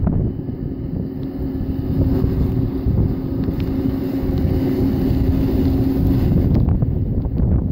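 Mobile crane's engine running, with a steady whine that stops about six seconds in, under heavy wind buffeting on the microphone.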